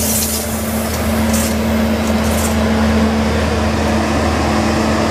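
Diesel engine of a DB V60 (class 363) shunting locomotive running steadily as the locomotive drives past.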